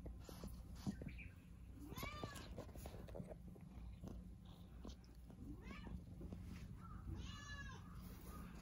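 Tortoiseshell domestic cat meowing faintly three times: a short call about two seconds in, a weaker one around six seconds, and a clearer, longer meow near the end.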